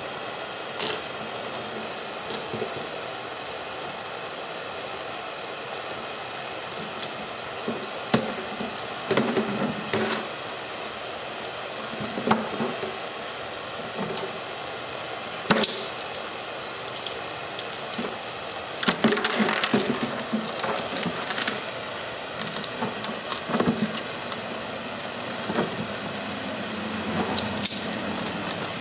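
Lit propane torch hissing steadily, with irregular clicks, knocks and scrapes of locking pliers gripping and bending heat-softened plastic of a grass-catcher chute.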